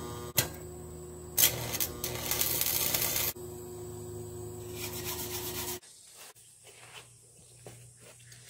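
Arc welding: a crackling, hissing arc struck for about two seconds, over a steady machine hum. The hum drops away about six seconds in, leaving faint scattered clicks.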